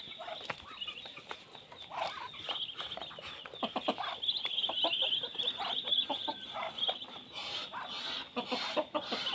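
A brood of Muscovy ducklings peeping continually, many high, short calls overlapping, with a few lower, shorter calls among them. The peeping grows busier about halfway through.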